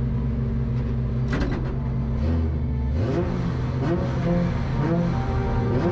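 Car engine running with a steady drone, then revving up and down repeatedly from about three seconds in.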